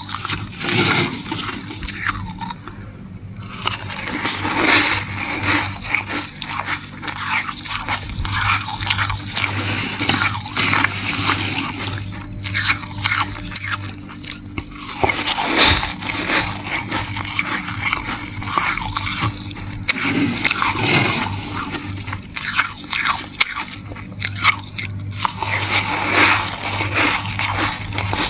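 Dry, flaky freezer frost being scraped and crunched: a dense crackling scrape that comes in stretches with brief lulls, over a faint steady low hum.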